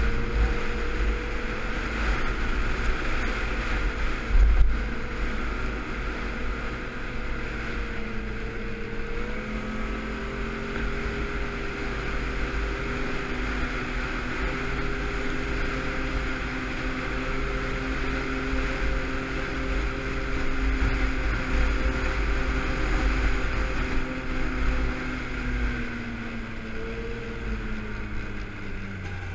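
Yamaha snowmobile engine running at a steady cruising speed, with wind rumbling on the helmet-mounted microphone. The engine note dips briefly about nine seconds in and falls lower near the end as the sled eases off.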